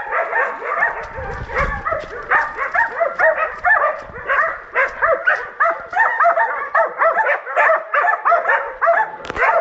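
Hunting dogs barking continuously, several barks a second and overlapping, as they bay a wild boar.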